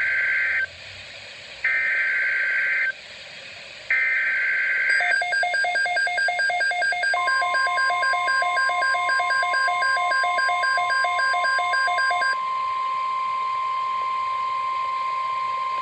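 Emergency Alert System activation on NOAA Weather Radio. First come three short data bursts of the SAME header. Then a fast, pulsing electronic alarm beeps for about seven seconds, and about seven seconds in the steady 1050 Hz weather radio warning alarm tone joins it.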